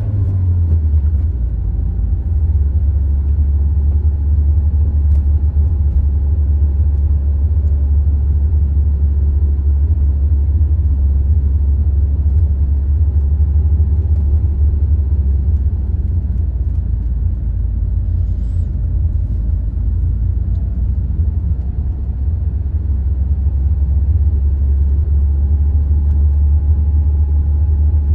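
Steady low rumble of a car driving on an asphalt road, heard from inside the cabin: tyre and engine noise at an even cruising speed.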